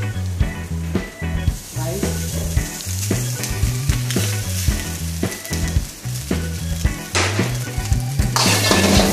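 Food sizzling in a hot wok over a gas burner, with frequent sharp clinks of a metal ladle against the wok. The sizzle surges louder near the end as the cooked rice goes into the wok.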